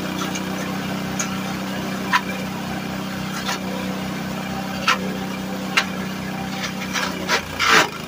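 LandWorks drum wood chipper's small engine running steadily on wood gas, with sharp cracks every second or so as pieces of wood are chipped, and a louder crunch near the end.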